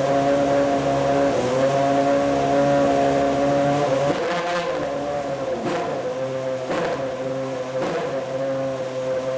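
Ferrari Formula One car's engine running at a steady idle, then briefly blipped about four times from about four seconds in, roughly once a second.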